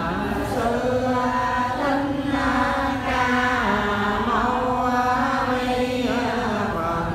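A group of women chanting a Vietnamese Buddhist chant in unison, in long held notes that shift pitch every second or so.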